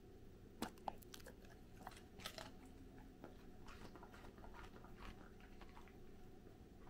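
Golden doodle biting into a treat with two sharp crunches a little over half a second in, then chewing it with faint, irregular crunches; the chewing sounds rather weak.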